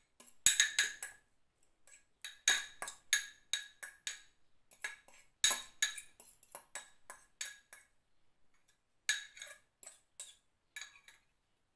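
Utensil clinking and scraping against ceramic bowls as canned tuna is scraped from one bowl into another: quick clusters of sharp clinks with short pauses between them.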